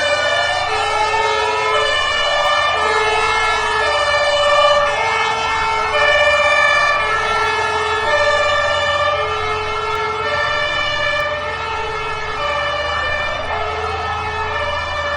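Several emergency-vehicle sirens sounding together. A two-tone siren steps back and forth between a low and a high note, while a wailing siren sweeps up in pitch near the start and again near the end, over a low engine rumble.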